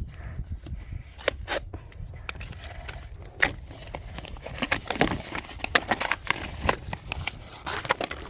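Packaging being handled and opened: irregular crackling, scraping and clicking, with the sharpest clicks about three and a half and five seconds in.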